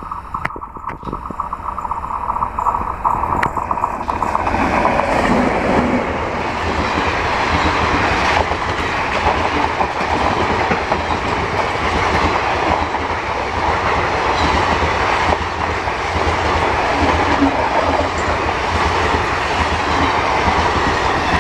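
WAP-7 three-phase electric locomotive and its passenger coaches passing at speed. The noise builds as the train approaches and grows loud about four seconds in as it reaches the microphone, then holds as a steady rumble with the clickety-clack of coach wheels on the rails.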